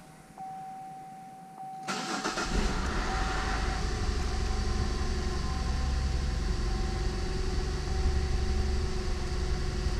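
2004 Cadillac CTS 3.6-litre V6 starting: the starter kicks in about two seconds in, the engine catches at once and settles into a steady idle. It starts now that a newly programmed PCM is fitted and the theft-deterrent relearn has been done.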